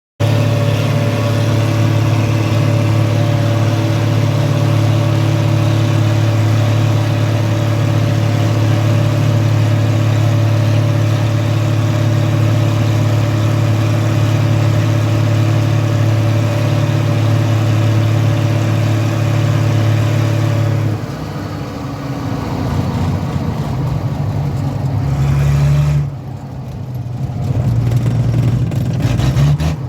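Schlüter Super 1250 VL tractor's diesel engine running at steady high revs for about twenty seconds. It is then throttled back, the note falling and getting quieter, and the revs rise and fall unevenly near the end.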